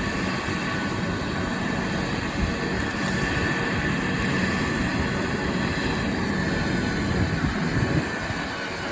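Helicopter running close by: a steady rotor rumble with a thin high whine held above it.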